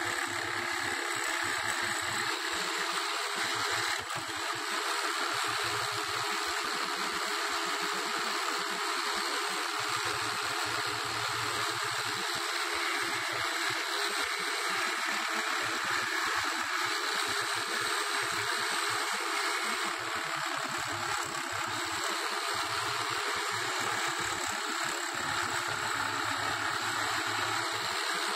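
Jigsaw mounted upside down under a homemade plywood table, running steadily with its trigger locked on while its blade saws through a small wooden workpiece.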